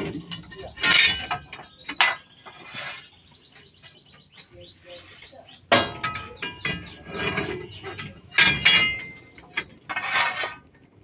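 Steel leaf-spring leaves of a Benz truck clinking and scraping against each other and the axle as they are handled and fitted by hand. Several sharp ringing metal clinks are heard, the loudest about six seconds in, with a stretch of grating scrape in between.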